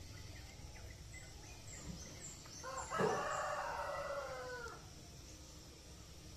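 A rooster crowing once: a single call of about two seconds that drops in pitch at the end. Faint high chirps come before it.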